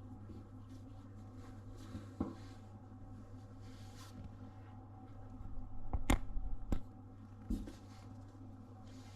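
A few sharp knocks and a brief louder scuffle about six seconds in, over a steady low hum.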